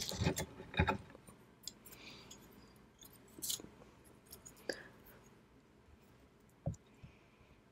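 Close-miked wet chewing of raw fish sashimi in the first second, then quieter scattered clicks and taps of chopsticks picking at the fish on the board, with a soft knock near the end.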